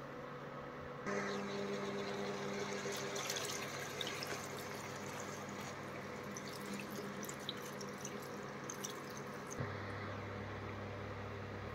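A stream of water is poured into a stainless steel pot of raw chicken pieces, splashing and filling with a steady ringing tone. It starts suddenly about a second in and runs for about eight seconds. A steady low hum starts when the pouring stops, near the end.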